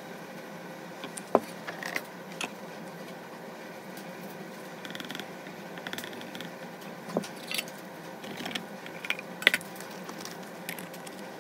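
Plastic medicine bottles, a funnel and a screw cap being handled on a bench: scattered light clicks and knocks, with the cap being screwed on near the end, over a steady background hum.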